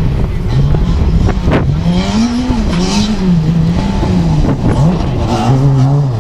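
Ford Fiesta rally car engine revving hard, its pitch climbing and dropping several times as the driver accelerates and lifts through the gears on a loose gravel stage. A few sharp cracks come early on, over the rough noise of tyres on gravel and mud.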